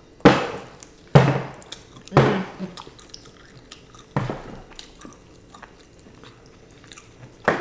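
Crunching bites and chewing of crisp-coated fried chicken wings close to the microphone: about five sharp crunches, each fading quickly, the first two loudest.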